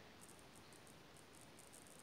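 Near silence: room tone, with faint irregular ticks very high in pitch.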